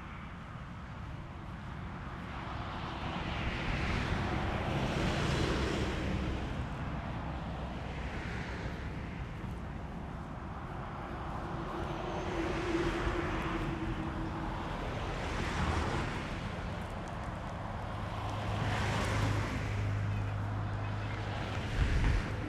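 Gusty wind rising and easing every few seconds, buffeting the camera's microphone with a low rumble. A steady low hum comes in during the last few seconds, with a short knock just before the end.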